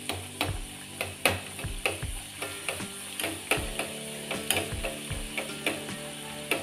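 Kachoris deep-frying in hot oil on a high flame, with a steady sizzle and many irregular crackles. A steel spoon clicks and scrapes against the pan as it splashes oil over the puffing kachoris.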